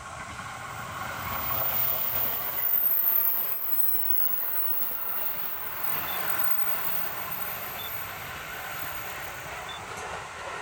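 JR East E129 series electric multiple unit passing close by, its wheels running on the rails. It is loudest about two to three seconds in, then fades to a lower, steadier sound as the train moves away.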